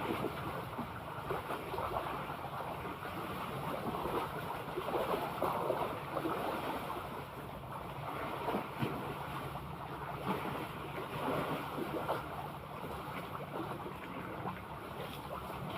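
Sea water washing and sloshing, with wind buffeting the microphone: a steady, crackly wash with no clear events.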